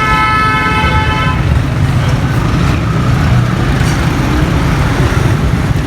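A vehicle horn sounding steadily, cutting off about a second and a half in, over a continuous low rumble of street traffic.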